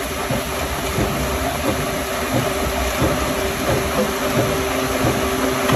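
Log rounding machine running: its spiral-toothed steel rollers turn a log and shave off wood, making a dense, steady clattering rumble with a constant motor hum.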